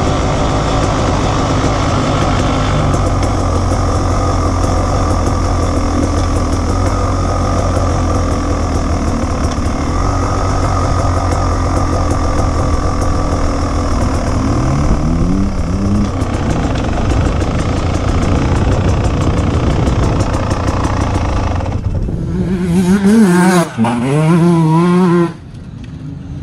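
Onboard sound of an enduro motorcycle engine running steadily as the bike rides along, its pitch briefly rising and falling partway through. Near the end the engine revs hard with a quickly wavering pitch, then the sound suddenly drops to a quieter, more distant engine noise.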